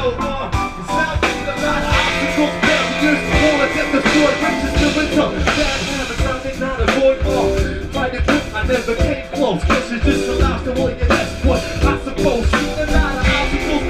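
Live electronic hip hop band playing: a drum-kit groove with bass and keyboards, and a vocal line over it.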